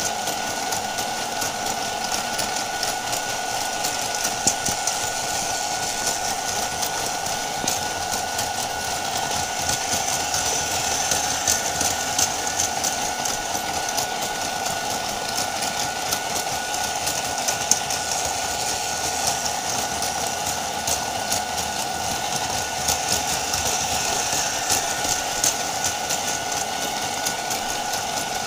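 Battery-powered Plarail toy trains running on plastic track: a steady motor whir with rapid clicking of gears and wheels.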